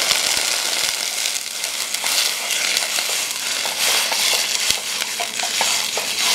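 A hot saucepan of mirepoix (onions, carrots and celery) sautéing in olive oil sizzles steadily as chicken broth is poured in from a carton, with a spatula stirring.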